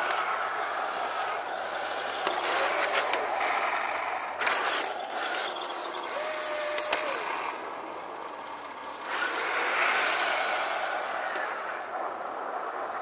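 Heng Long radio-controlled model tank driving on asphalt: a steady whir of its small gear motors and plastic tracks, with a few sharp clicks.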